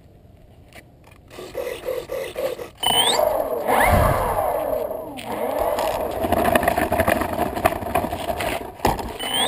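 Electric motor and propeller of a Multiplex Fun Cub RC plane starting up about three seconds in and running with its pitch rising and falling, while the plane rolls and scrapes over a dirt strip. Before that, only a few quiet handling knocks.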